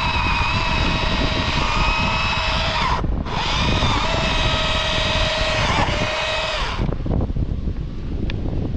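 Chainsaw running at high revs. It drops out briefly about three seconds in and stops about seven seconds in, leaving a low engine rumble underneath.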